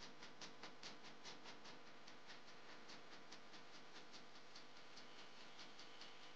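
Bare hands squeezing and kneading moist mashed potato (aloo chokha) into a ball: faint, quick sticky squelching clicks, about four to five a second, over a low steady hum.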